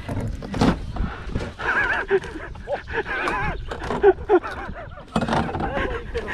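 A person's excited, wavering vocal whoops, with sharp knocks and clatter of the landing net and gear against the canoe.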